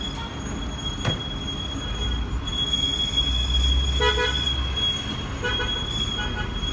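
Street traffic with car horns honking: a short honk about four seconds in and two more near the end. Underneath is a low rumble of passing vehicles and a steady high whine.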